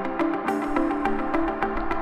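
Background electronic music with a steady quick beat and synth notes.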